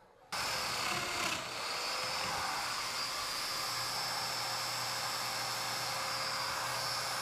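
Festool Domino joiner running steadily as it cuts mortises in walnut boards, its high whine dipping briefly under load about a second in.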